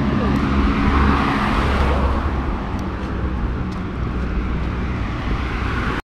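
Street traffic: a motor vehicle engine running close by, a steady low hum over road noise, easing slightly after about two seconds.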